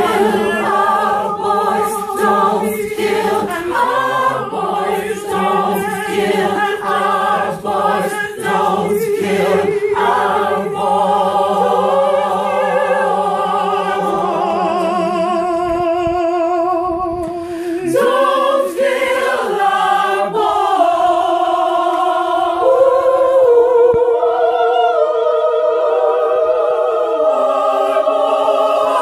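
Unaccompanied vocal ensemble singing long held chords with vibrato. The low voices drop out about halfway through, and higher women's voices carry the harmony to the end.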